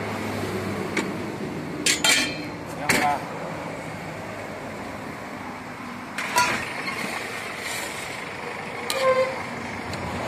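Stainless-steel ladles and lids clinking against steel serving pots: several sharp metallic clinks that ring briefly, over a steady background of street noise and voices.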